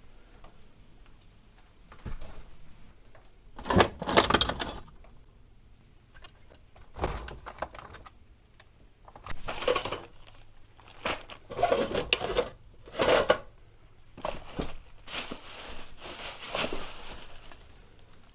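Small metal hardware clattering and rattling in about eight short, irregular bursts, as someone rummages through nuts and bolts.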